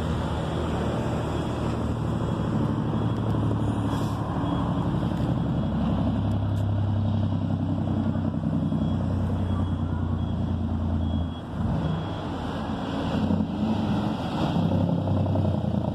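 Large diesel truck engine running with a steady low hum, with road traffic passing; the hum dips briefly about two-thirds of the way through and then comes back.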